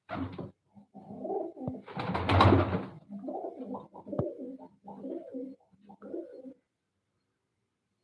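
Fancy pigeons cooing, a run of repeated low calls. About two seconds in comes a louder, noisy rush, like a pigeon's wingbeats as it flies down to a lower perch.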